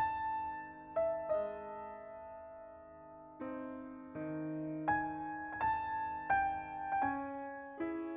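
Background piano music: a slow melody of single notes and chords, each struck and left ringing as it fades, about one new note a second.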